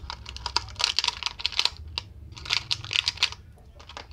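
Rapid clicking and rattling of small plastic items being handled, in two short flurries.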